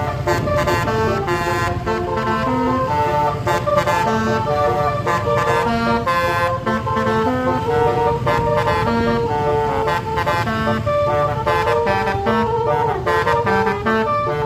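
Bus's multi-trumpet telolet air horn playing a tune nonstop, its notes stepping up and down several times a second, over a low rumble.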